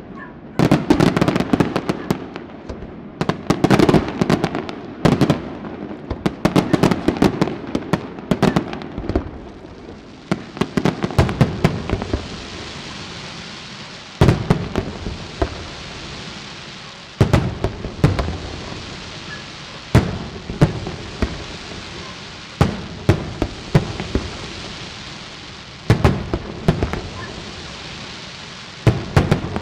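Aerial firework shells bursting in a display: a rapid barrage of bangs for the first ten seconds or so, then single loud booms about every three seconds over a steady hiss.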